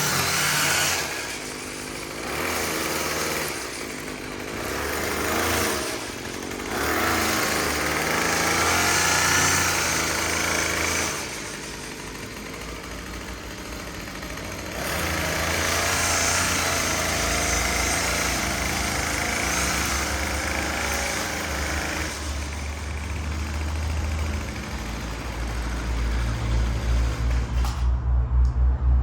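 Lawn mower engine running while cutting grass, its level dipping and rising every few seconds. About a second before the end it cuts off abruptly, leaving a low pulsing rumble.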